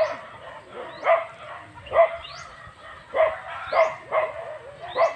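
A dog barking repeatedly: short single barks about once a second.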